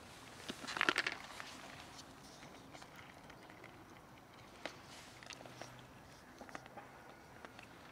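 Cats crunching dry food off the ground, faint. A quick run of crunches about a second in, then scattered single crunches and clicks.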